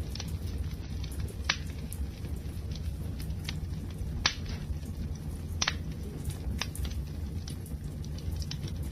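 Wood fire crackling: frequent small snaps and pops over a low steady rumble, with three louder pops spread through it.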